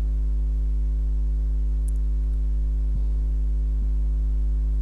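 Steady electrical mains hum with a stack of overtones, picked up in the recording's audio chain.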